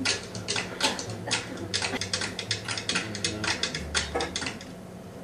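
Rapid, irregular clicks and taps, several a second, dying away near the end.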